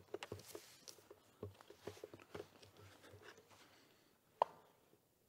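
Faint footsteps and camera handling noise on a hard floor in a large empty room, fading out, then a single sharp click with a brief ring about four and a half seconds in.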